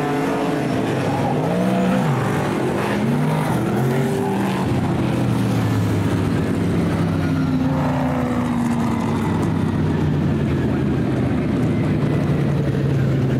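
Superstock speedway cars' V8 engines running around the dirt oval, several of them rising and falling in pitch on and off the throttle over the first few seconds, then a steadier, slowly falling drone.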